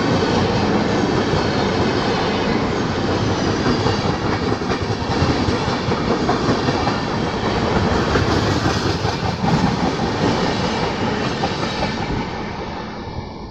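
Indian Railways express train of LHB coaches running through a station at speed, its wheels rattling over the rails close by. The noise falls away near the end as the last coach goes past.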